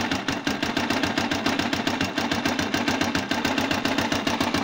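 Air-cooled single-cylinder motorcycle engine running with a very hard knock from inside it, an even rapid rhythm of about ten knocks a second: a serious internal engine fault whose cause has not yet been found.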